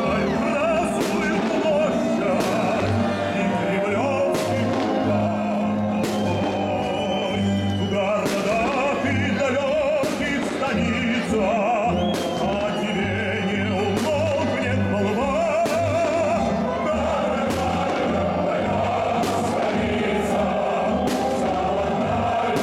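Music with singing in long, wavering held notes, with fireworks shells bursting through it as short sharp bangs about once every second or so.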